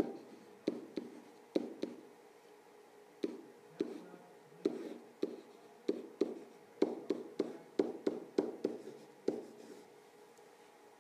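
Stylus tapping and knocking on an iPad's glass touchscreen during handwriting: irregular sharp taps, coming faster about six seconds in and stopping about nine seconds in.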